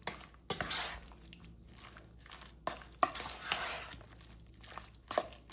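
A utensil stirring diced potatoes through a thick sour cream and ranch dressing in a bowl: repeated wet swishing strokes, with a few sharp clicks of the utensil against the bowl.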